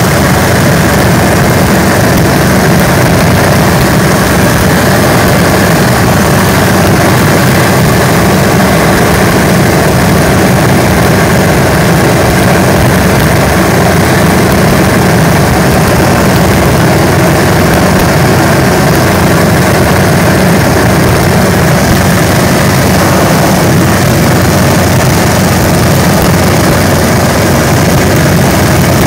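Light propeller airplane's piston engine and propeller droning steadily at cruise power, heard from inside the cockpit, with a steady rush of air over the airframe.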